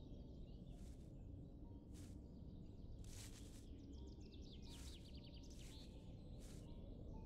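Quiet woodland ambience: a steady low rumble, faint high swishes at irregular intervals, and a bird's rapid trill about four seconds in.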